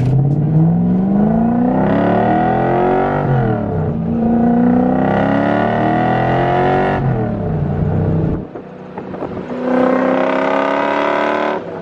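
Drift truck's engine, heard from inside the cab, accelerating hard through the gears: the engine note climbs in pitch, drops back at an upshift, climbs again, and drops at a second upshift. It then eases off about eight seconds in and pulls up again near the end.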